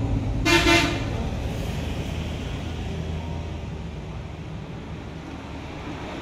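A vehicle horn toots once, briefly, about half a second in, over a low steady rumble that slowly fades.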